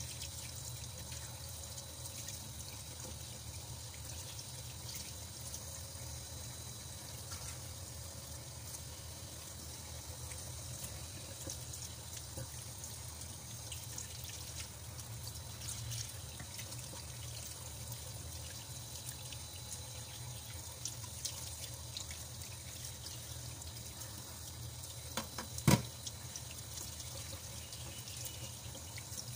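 Kitchen tap running steadily into a stainless-steel sink, the stream splashing over spiny sea cucumbers as hands rinse and rub them. One sharp knock near the end.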